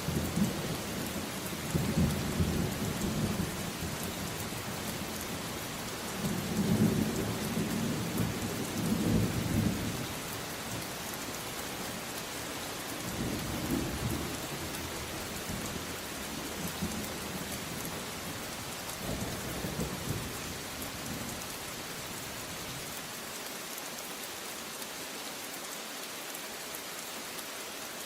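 Steady rain hissing, with rolls of thunder rumbling in the first ten seconds and fainter rumbles later that die away, leaving only the rain near the end.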